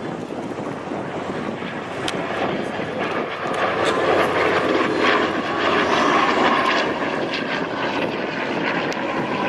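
Piston-engined propeller airplane flying by, its engine noise swelling about four seconds in and staying loud.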